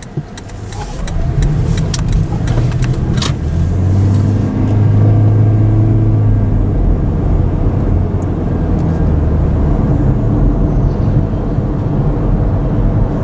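Car engine and road noise heard from inside the car as it pulls out and accelerates, the engine note building over the first couple of seconds and then holding steady at cruising speed.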